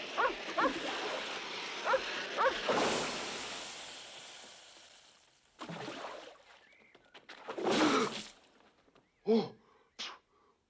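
A rocket pack hissing, then dying away over about five seconds, with a few short falling squeaks near the start. Then comes a splash of water and two short yelps.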